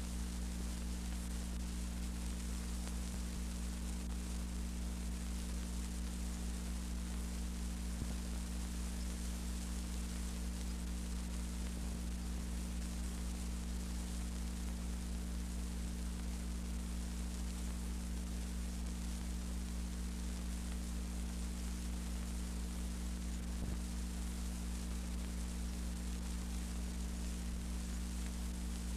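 Steady electrical hum with its overtones under an even hiss, with no music or voices: the bare noise floor of the film's audio track. Two faint ticks break it, about 8 seconds in and near the end.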